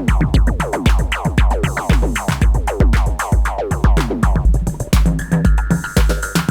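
Arturia MiniFreak synthesizer playing an electronic dance groove. A steady kick-drum pulse runs under a fast stream of short notes that each drop in pitch, and a held high note comes in about five seconds in.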